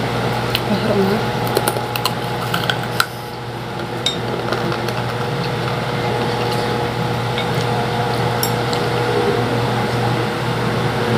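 Steady whir and hum of an electric fan, with a spoon clinking against a bowl several times, mostly in the first three seconds and once more later.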